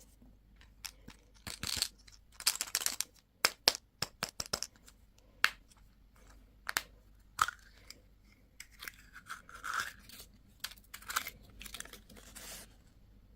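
Packaging being torn open and crinkled by hand, in irregular bursts of tearing and rustling with sharp clicks and crackles between them.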